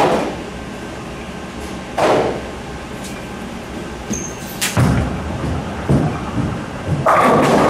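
A Hammer Dark Web bowling ball hits the lane about halfway through and rolls down it with a low rumble, then crashes into the pins near the end. There is a single sharp knock about two seconds in.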